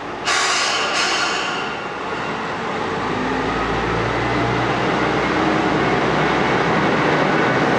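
Diesel railcar departing a station. A sudden loud burst about a second and a half long comes first, then the underfloor diesel engine revs up and runs steadily under load as the car pulls away.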